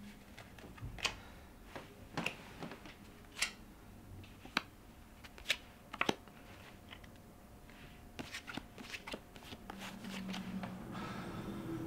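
Playing cards being handled and shuffled, a scattering of sharp, irregular clicks and snaps.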